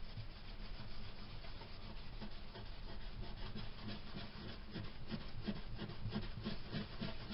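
Coarse polishing compound being hand-rubbed into the lacquer finish of a Guild D25 acoustic guitar top in back-and-forth strokes. The strokes become regular, about two a second, a couple of seconds in.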